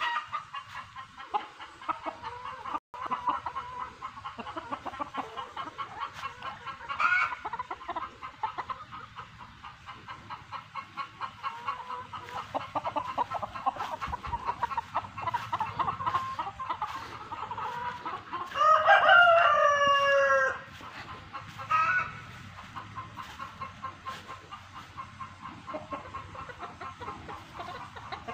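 Chickens clucking throughout. A rooster crows once, loudly, for about two seconds, about two-thirds of the way in, and there are a few shorter calls.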